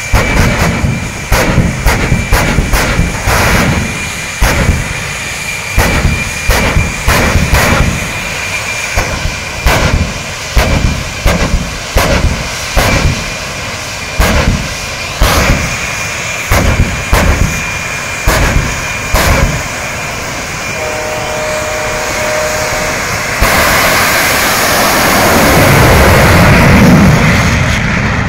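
Jet engine of a jet-powered semi truck, with a steady turbine whine and a rapid run of loud flame bangs, about two a second. A brief steady horn-like tone follows, then about 23 seconds in the jet goes to full power: a sudden loud roar that swells and then fades as the truck launches down the drag strip.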